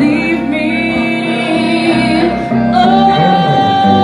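A woman singing live over guitar accompaniment, drawing out long notes, then holding a higher note steady from about three seconds in.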